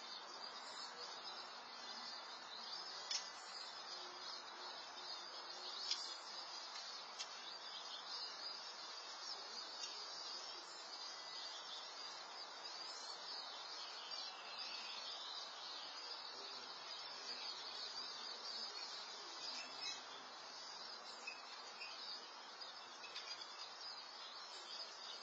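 Faint, steady outdoor background hiss picked up by a security camera's microphone, with a couple of soft ticks.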